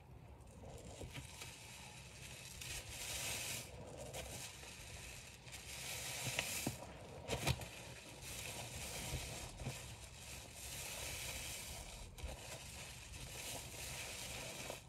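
A soapy foam sponge squeezed again and again by rubber-gloved hands in a pan of thick suds: wet squelching and fizzing crackle of bursting bubbles that swells with each squeeze, with a couple of sharper wet pops about halfway through.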